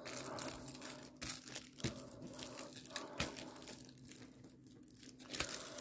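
Faint crinkling and rustling of diamond painting sticker sheets and their plastic packaging as hands press them flat, with a few light ticks.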